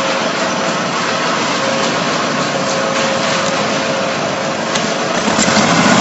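Diesel construction machinery running steadily, an even engine noise with a faint steady hum and a couple of light clicks near the end.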